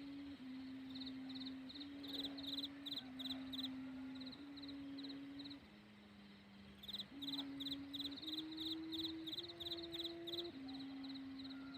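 Rattan-strung kite hummer (sanu) on a flying Thai kite, giving a steady low droning hum that shifts up and down in pitch every second or so. Over it runs rapid, high-pitched chirping in quick series.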